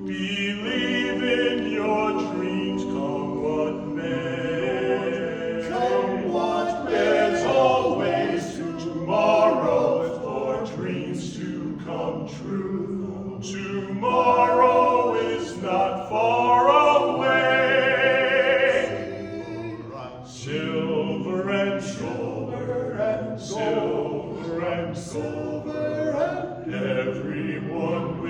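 Vocal music: voices singing a Christmas song with choir-like backing, held notes with vibrato.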